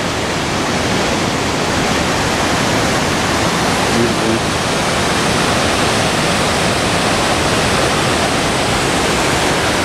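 Waterfall on the Linville River pouring over rock ledges into a pool, a loud, steady rush of falling water.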